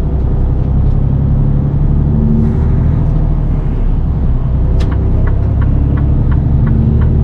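Semi-truck tractor unit driving at autobahn speed, heard inside the cab: a steady low engine drone with road rumble. About five seconds in, a run of light, evenly spaced ticks comes in, about three a second.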